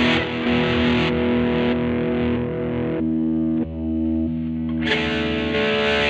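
Electric guitar, a Jazzmaster HS-based 'Jazzblaster' conversion, played through a Peavey Vypyr VIP 2 modelling amp with distortion and effects. Held distorted notes and chords change about three seconds in, and harder picking returns about five seconds in.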